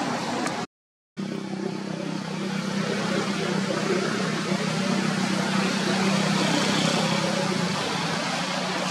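A vehicle engine running steadily with a low hum over a constant background hiss. The sound cuts out completely for about half a second just under a second in, then resumes.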